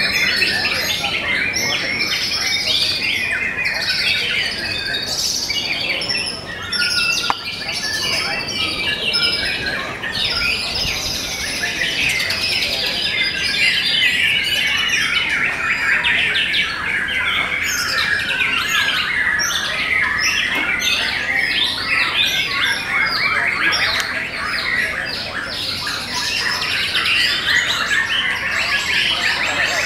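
White-rumped shamas singing, several at once: a dense, unbroken stream of quick whistles, trills and chirps.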